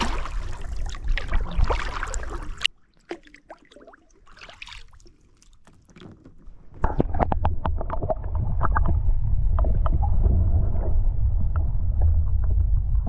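Kayak paddling: paddle strokes splashing and dripping, with many small water clicks. The sound cuts off abruptly about three seconds in and stays faint for about four seconds. It then comes back louder over a steady low rumble.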